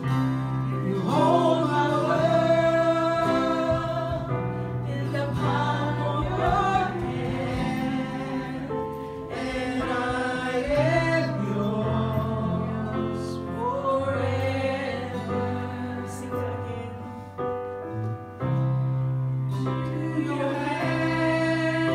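A woman singing a slow worship song into a microphone, over steady instrumental backing with sustained low notes.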